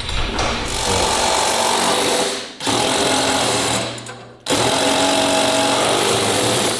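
Craftsman cordless impact driver with a socket running down a hex bolt through a steel ramp plate, in three bursts: about two seconds, a short pause, a second shorter burst, another short pause, then a final burst of a couple of seconds.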